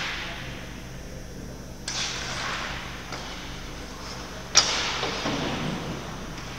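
Two sharp knocks, about two seconds in and about four and a half seconds in, the second much the louder; each is followed by a second or two of noisy rush.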